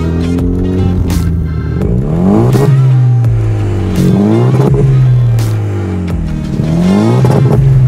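Land Rover Defender 110 engine heard at the exhaust tips, revved three times while standing: each blip rises quickly in pitch and falls back, about two, four and seven seconds in.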